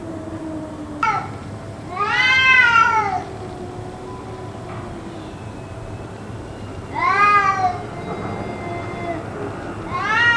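Cats yowling: long, loud wailing calls that rise and fall in pitch about two seconds in and again about seven seconds in, with a third starting right at the end and low, drawn-out moaning tones in between. The uploader wonders whether it is a fight.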